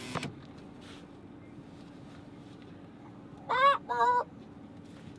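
Two short goose calls close together, each rising then falling, about three and a half seconds in, over a faint steady hum.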